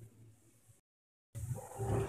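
Spatula stirring and scraping grated coconut and sugar around a kadhai, a soft shuffling with light knocks, cooking until the sugar dissolves. It is faint at first, cuts out dead for half a second before the middle, then comes back louder.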